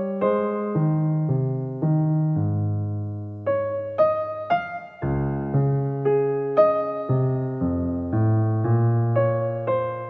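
Solo piano music: a simple sonata played as single notes and chords, each struck and left to ring and fade before the next.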